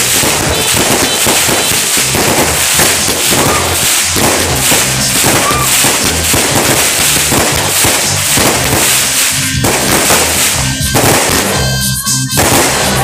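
Aerial fireworks bursting one after another: a dense, continuous crackling and popping, with music playing alongside.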